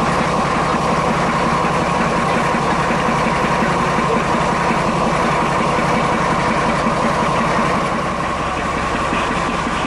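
Class 42 Warship diesel-hydraulic locomotive's Maybach V12 diesel engine idling steadily while the locomotive stands still. A constant whine sits above the low engine note.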